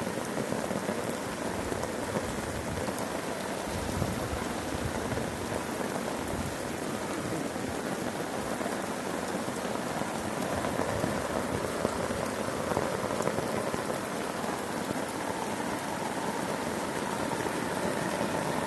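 Heavy rain falling steadily on a tarp overhead and the ground around it.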